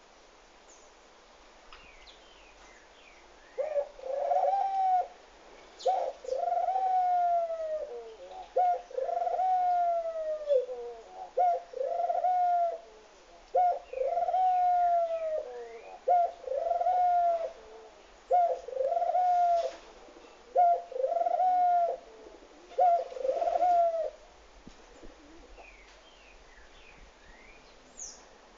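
Barbary dove (ringed turtle dove) cooing: a run of about ten rolling coos, each a short note followed by a longer one that rises and then falls. The coos start a few seconds in and stop a few seconds before the end.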